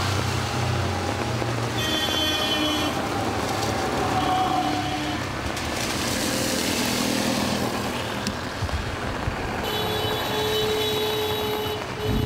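Road traffic on a rain-soaked street: a steady hiss of vehicles passing on the wet road, with short horn toots, and a steady high tone comes in about ten seconds in and holds.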